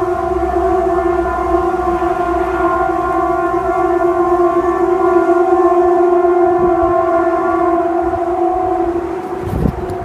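A long, steady, horn-like droning tone with several overtones, the unexplained noise people call "sky trumpets"; it holds one pitch and fades out near the end, with a brief low thump just before it stops.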